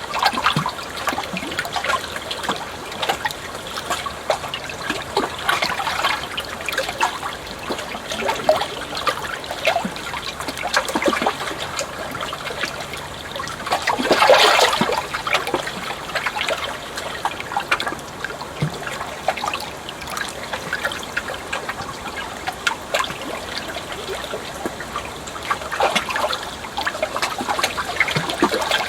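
Water trickling and splashing continuously, full of small drips and gurgles, with one louder splash surge about halfway through.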